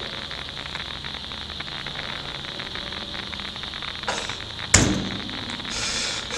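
Steady hiss of radio static with a thin high whine, answering an unanswered radio call. A single sharp knock comes a little before five seconds in.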